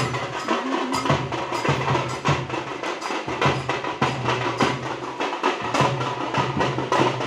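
Nagara drums beaten in a fast, steady rhythm, as played with a Muharram tazia procession. A low droning tone sounds under the strokes and drops out for short gaps.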